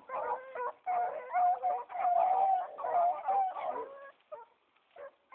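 A pack of rabbit hounds baying together, several voices overlapping in drawn-out, ringing notes: hounds giving voice as they run a rabbit's scent. The chorus dies away about four seconds in, leaving a few short yelps.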